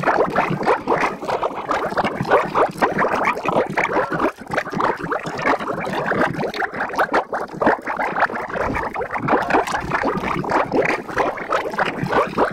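Cartoon water sound effect, a continuous dense splashing and gurgling, with little high end.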